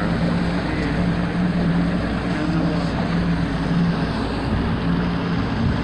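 Motorboat engine running steadily underway, with a constant rush of wind and water.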